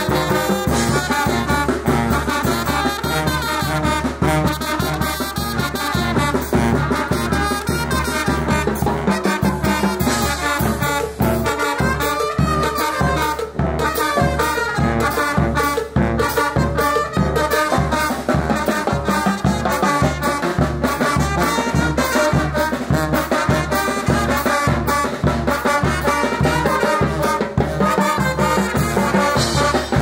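Brass band (banda de viento) playing a chilena live: trombones and sousaphone carry the melody and bass over a steady beat of bass drum, cymbal and timbales.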